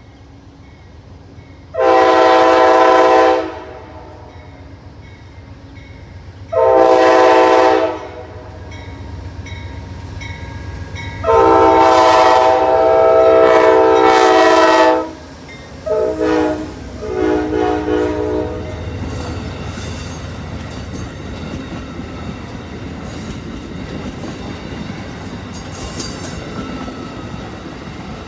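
Amtrak GE Genesis P42DC diesel locomotive sounding its multi-note horn for a grade crossing: three long blasts, the third held about four seconds, then a couple of short toots. The train then passes close by, engine rumble giving way to the steady clickety-clack of the coaches' wheels over the rail joints.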